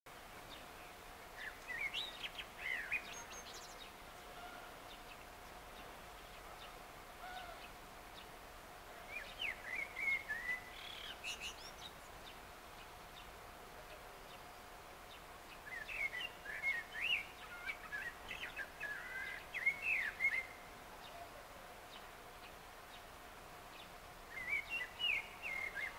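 Male Eurasian blackbird singing its evening song: four phrases of quick rising and falling notes, each a couple of seconds long, with pauses of several seconds between them.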